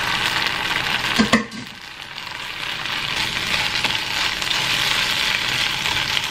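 Green beans sizzling in hot olive oil and garlic in a nonstick frying pan, stirred with a nylon slotted spatula. A brief louder sound comes about a second in, after which the sizzle dips for a moment and builds back up.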